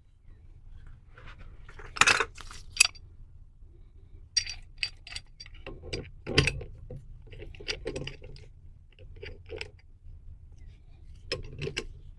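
Metal clinks, clanks and scrapes of a hand tool gripping and turning a threaded brass fitting, with two loud clanks about two seconds in and many lighter clinks after.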